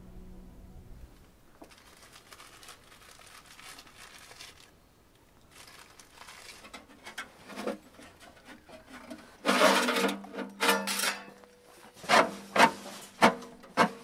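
Clattering and knocking of hard objects, growing louder, then a run of sharp strikes about two a second near the end.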